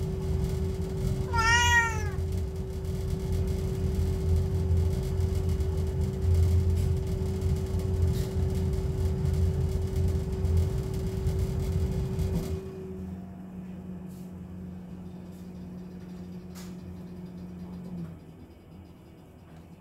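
Wall-mounted gas boiler running with a steady hum and a held droning tone. About twelve seconds in it drops to a softer, lower hum, which stops a few seconds before the end. A cat meows once about a second and a half in.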